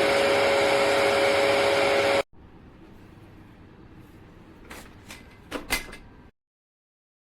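Hoover PowerDash Pet carpet cleaner's motor running with a steady whine, cut off abruptly about two seconds in. A few light clicks follow against quiet room sound.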